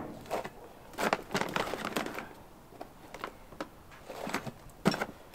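Small plastic nursery bags and potting substrate being handled, rustling and crackling. The sound comes in three short spells with quiet gaps between: right at the start, for about a second from one second in, and briefly near the end.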